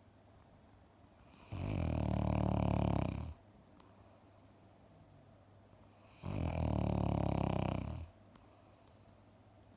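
A tired dog asleep and snoring: two long snores about five seconds apart, each lasting a second and a half or more.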